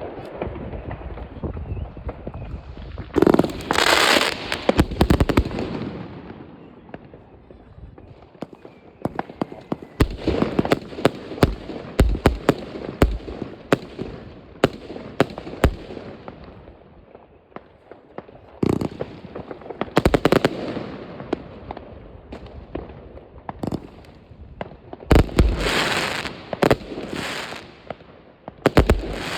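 Consumer New Year's fireworks going off all around: a steady crackle pierced by many sharp bangs, with dense clusters of loud reports returning every few seconds.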